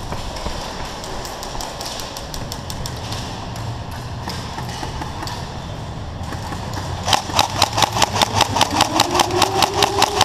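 Airsoft gun firing a long full-auto burst starting about seven seconds in: a fast, even run of sharp clicks with a whine that rises as the motor spins up. Before that there is only scattered, fainter shooting over background noise.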